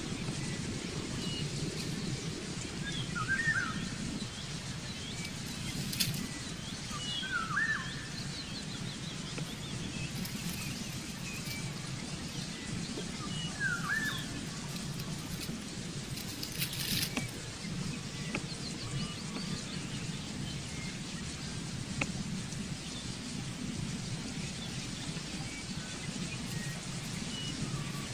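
Birds chirping: one short, rising chirp repeats three times several seconds apart, with fainter high chirps in between, over a steady low outdoor background hum.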